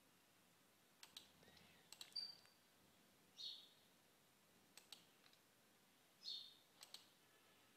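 Near silence with a few faint computer mouse clicks, spread out over several seconds, and a few short, faint high-pitched chirps between them.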